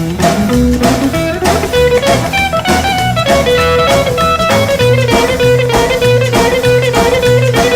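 Instrumental break of a blues song: a guitar plays a lead line over a pulsing bass line and a steady drum beat, with no singing.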